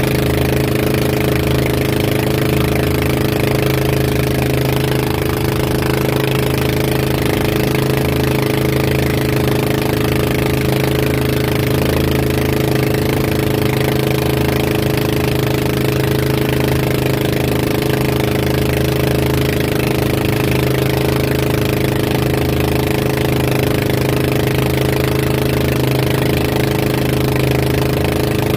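Outrigger boat's engine running steadily at speed under the load of a towed banana boat, over water rushing and splashing past the hull.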